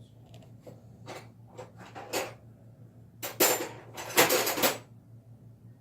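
Metal wrenches and fittings clinking and clattering as they are handled and tried for size, with scattered light clicks at first and a louder run of clatter about three and a half seconds in.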